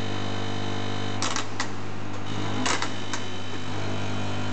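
Vibrating feeder trays of an LTEC-24 automatic capsule and tablet counting machine running with a steady low hum, with a few sharp clicks in two short clusters, about a second in and again near the three-second mark.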